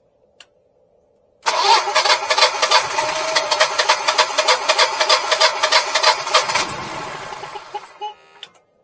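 Generac Guardian standby generator's engine starting up about a second and a half in, running for about five seconds, then winding down and dying, with a few clicks near the end. It keeps kicking on and kicking off, which the owner puts down to a sensor not getting gas or air in the lines.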